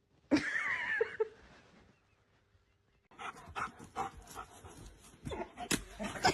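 A dog whining, one wavering high call about a second long near the start. Later there is a run of scattered knocks and rustling.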